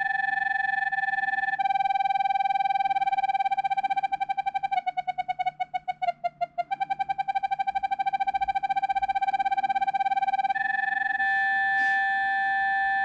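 Tape King TK101 talking tape measure's spirit-level tone: a steady electronic beep that means level, which about 1.5 s in changes to a different pulsing beep as the tape is tilted up off level. The pulses break into distinct rapid beeps in the middle, and about ten seconds in the steady level tone comes back.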